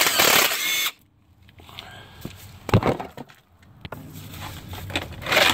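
A power driver spins a 10 mm bolt out of the plastic undertray with a brief whine for about a second. Then come a few sharp knocks and the clatter of the loosened plastic panel, with another burst of rattling near the end.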